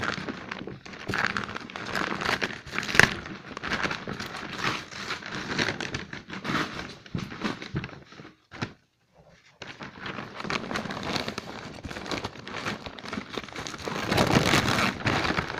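Bubble wrap crinkling and crackling as a wrapped item is handled and pulled about, stopping for about a second partway through and getting louder near the end.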